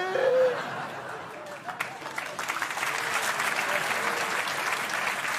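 Theatre audience applauding, the clapping building up over the first couple of seconds and then holding steady. A man's sung vocal line ends just at the start.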